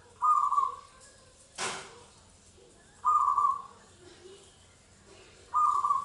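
Caged zebra dove (perkutut) cooing its rolling call three times. Each call lasts about half a second, and the calls come a few seconds apart. A brief rustle falls between the first two calls.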